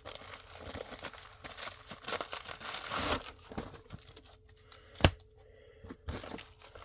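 Packaging rustling and crinkling as comic books are handled and taken out of a box, with one sharp click about five seconds in.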